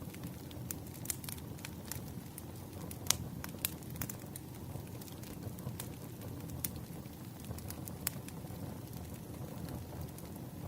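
Campfire burning: wood crackling with scattered sharp pops over a steady low rumble of the flames, the loudest pop about three seconds in.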